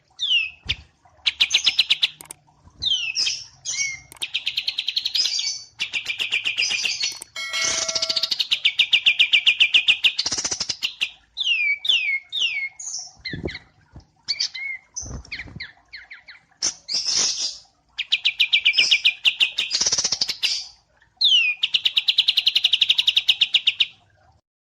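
Wambi mini and kapas tembak songbirds singing: long, fast rattling trills of rapidly repeated notes, mixed with quick swept whistles, in phrases of one to three seconds with short breaks between them.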